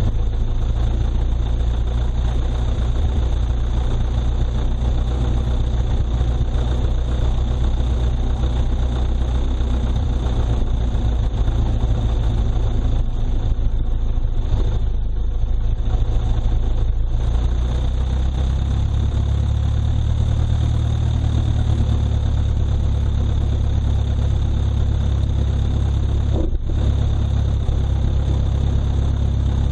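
Small airplane's engine running steadily at low power during taxi, with propeller and wind noise. The engine note shifts a little about eighteen seconds in.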